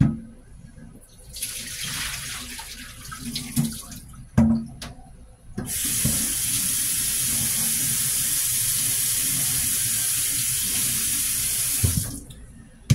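Kitchen tap running into a sink: a steady stream of water for about six seconds in the second half, ending with a knock. Before it come a couple of knocks and a shorter, uneven spell of noise.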